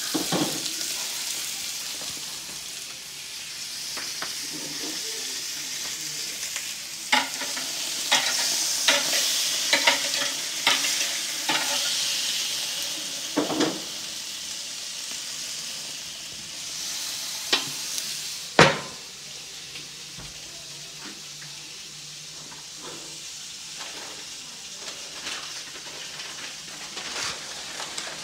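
Steaks sizzling on a hot gas-grill grate, with scattered clicks and knocks. About eighteen seconds in, a loud sharp clack as the grill lid shuts, after which the sizzle is quieter and muffled.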